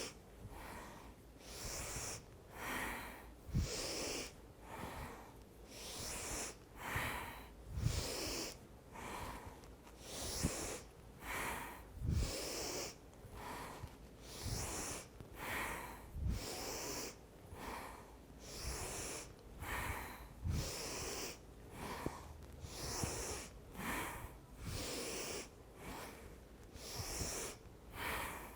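A woman breathing hard and rhythmically, a forceful inhale then exhale repeating about every 0.8 s, each breath paced with a side-to-side twist.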